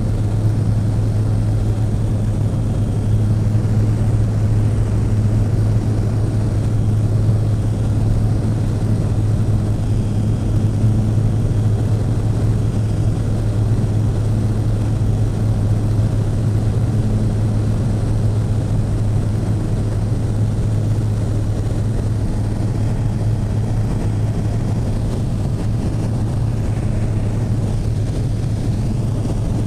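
Floatplane's piston engine and propeller droning steadily in flight, heard from inside the cabin as a loud, even low hum of unchanging pitch with rushing noise over it.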